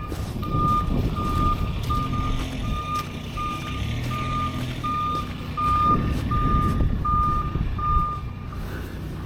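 A vehicle's reversing alarm beeping in an even rhythm, a little under two beeps a second, over the low rumble of its engine running; the beeping stops shortly before the end.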